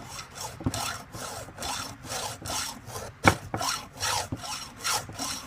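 A round chainsaw file rasping across a chain's cutter tooth in quick, even strokes, about three a second, touching up the tooth's edge. One sharper click about three seconds in.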